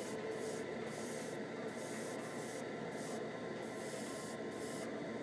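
Airbrush spraying Alclad flat clear coat, a steady hiss of air and paint that breaks off and starts again several times in short spells.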